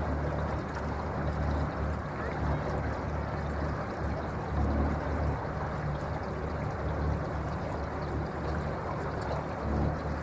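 Water swishing and splashing along the hull of an electric boat under way, with the motor itself unheard. A low rumble comes and goes underneath.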